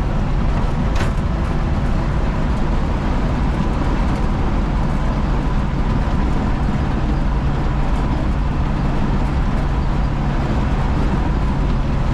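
Cab noise inside a 1973 Chevy C20 pickup cruising at about 40–45 mph: a steady drone of engine, drivetrain and road noise with a lot of wind noise. A single brief click about a second in.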